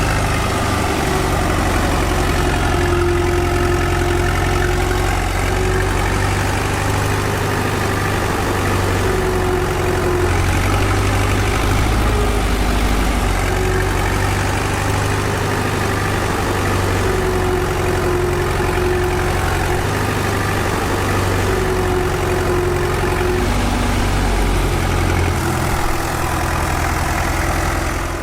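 Engine of a home-built mini tractor running steadily at about idle, a continuous low drone with a slightly wavering pitch.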